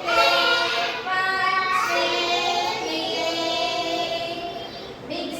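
Children singing a song with music, in long held notes that step from pitch to pitch.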